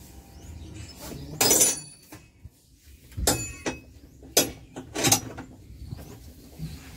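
A few sharp metallic clinks and knocks, with a longer clatter about a second and a half in, as racing motorcycles and their tie-down straps are shifted and secured in a van.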